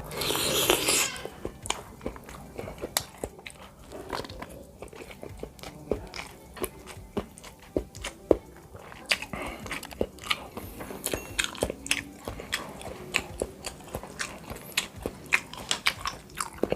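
Close-miked chewing and biting of bakso meatballs: many wet mouth clicks and smacks at an irregular pace. A louder noisy burst comes in the first second.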